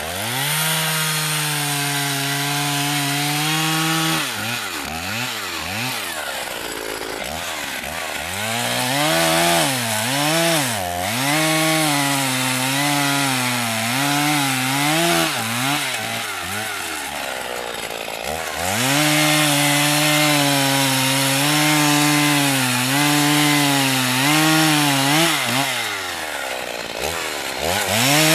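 1987 Husqvarna 50 Special two-stroke chainsaw cutting through logs, running at high revs under load. Its engine pitch drops and climbs back several times, holding steady through the longer cuts.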